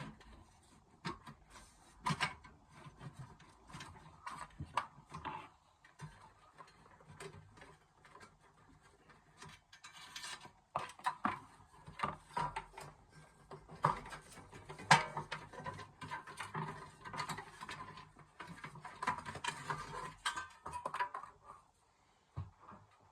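Irregular small clicks, taps and scrapes of hand-tool work on a Chinese diesel heater as parts are unscrewed and handled.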